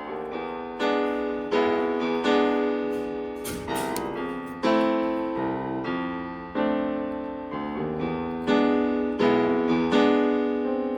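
Background piano music: single notes and chords struck about once a second, each fading away.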